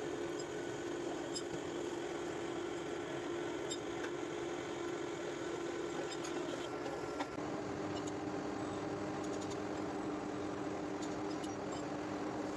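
Metal lathe running steadily, turning a metal gear blank with an indexable turning tool: a continuous machine hum with a steady whine. About seven seconds in there is a short click and the whine shifts slightly in pitch.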